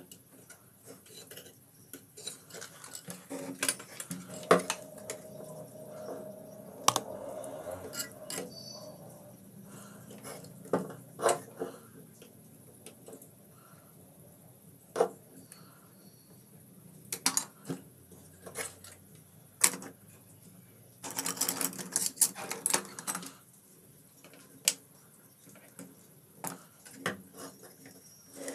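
Scattered sharp clicks, taps and small clinks of hand tools and a circuit board as new electrolytic capacitors are fitted into a CRT TV's board, with a quick run of clicks about three-quarters of the way through.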